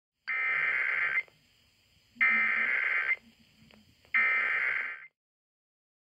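Emergency Alert System SAME header: three one-second bursts of digital data tones, about a second apart, encoding a Required Monthly Test alert.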